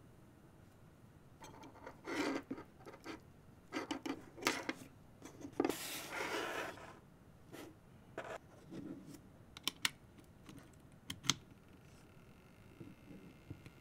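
Hands handling a PC cooling fan's wires and connectors: rustling, a long rasp about six seconds in, and several sharp clicks as plugs go together. About twelve seconds in, the fan starts running off a USB power bank, adding a faint steady whine.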